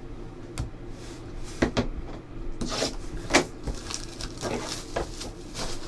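Trading cards and cardboard card boxes being handled and set down on a tabletop: scattered light knocks and clicks with bursts of rustling cardboard.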